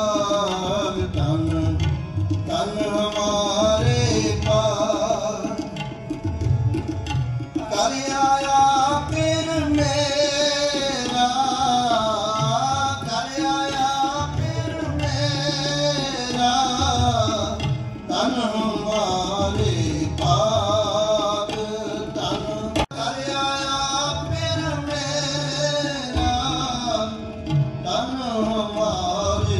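Gurdwara kirtan: a hymn sung in a wavering melody over harmonium, with a steady tabla rhythm underneath.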